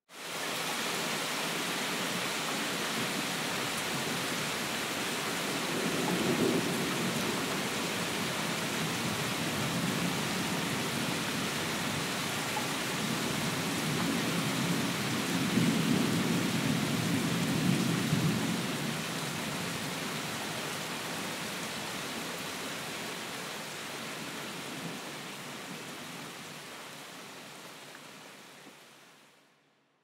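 Steady rain with two low rolls of thunder, a short one about six seconds in and a longer, louder one from about fourteen to nineteen seconds. The sound starts abruptly and fades out over the last couple of seconds.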